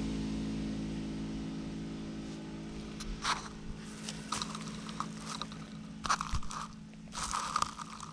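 Hands rummaging in dry leaf litter and grass on the forest floor, with several bursts of crunching and crackling from about three seconds in. Under it a distant engine hum fades away.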